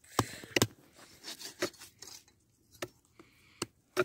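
Wooden sticks being handled: a handful of sharp, irregular knocks and cracks over brief rustling.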